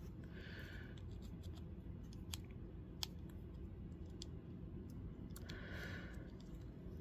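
Small knife parts and tools being handled on a work surface, faint: scattered light clicks and two short scraping sounds, one at the start and one about five and a half seconds in.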